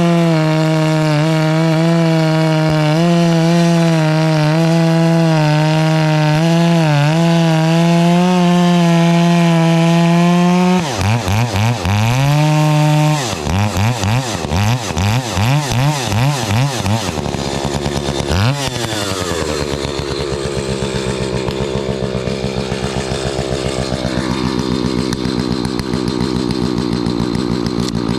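Gas chainsaw engine held at high throttle for about ten seconds. It is then revved up and down several times in quick succession and settles to a lower, steady idle.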